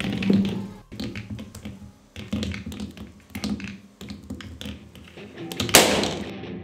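Background music, with a string of irregular sharp taps and clicks over it and a short, loud burst of noise about six seconds in.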